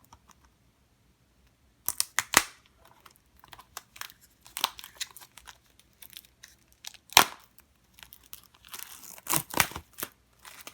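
Plastic wrapping on a Blu-ray case crinkling and tearing as it is handled, with scattered sharp crackles starting about two seconds in. The loudest snap comes about seven seconds in, and a denser run of crinkling follows near the end.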